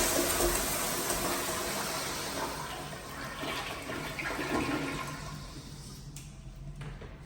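The tail of a flush in a restroom: the rush of water dies away steadily and is almost gone near the end.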